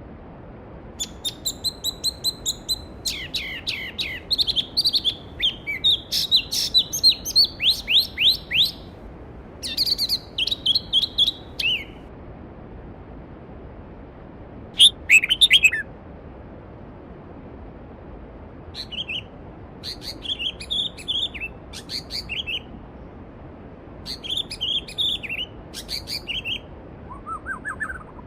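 Songbirds singing in several bursts of quick, repeated chirps and trills, over the steady rush of a flowing mountain stream.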